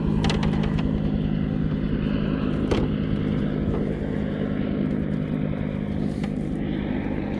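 Boat engine running at a steady, unchanging hum, with a couple of short knocks.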